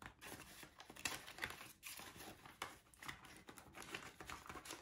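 Paper banknotes and a glossy plastic cash envelope crinkling faintly as a stack of bills is handled and slid into the envelope in a budget binder, with scattered small rustles and ticks.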